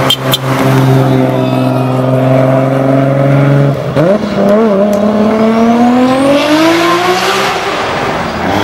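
Nissan Skyline R34 GT-R's twin-turbo inline-six revving hard, held at one high steady note for about four seconds. It then dips briefly and climbs in a long rising note as the car accelerates away, fading near the end. A few sharp cracks come right at the start.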